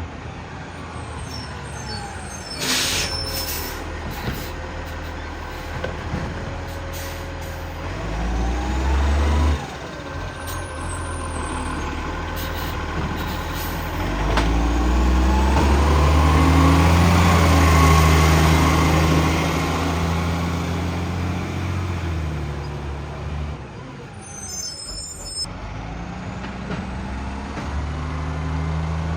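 Garbage truck's diesel engine running, with a short air-brake hiss a few seconds in; the engine revs up and grows louder for several seconds in the middle, then settles back. The truck has a bad exhaust leak.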